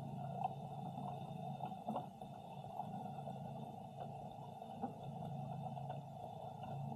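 Underwater ambience picked up by a submerged camera's microphone: a steady muffled hum with faint scattered clicks.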